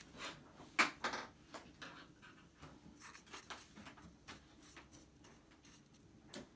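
Quiet handling noise: scattered light clicks and taps, with two sharper clicks about a second in.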